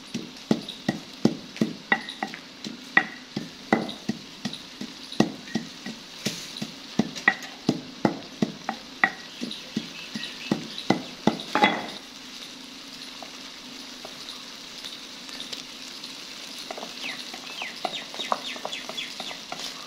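Wooden pestle pounding green seasoning in a mortar, about two knocks a second, over the steady sizzle of chicken frying in a wok. The pounding stops about twelve seconds in, leaving the sizzle, with light clicks of a spoon scraping the mortar near the end.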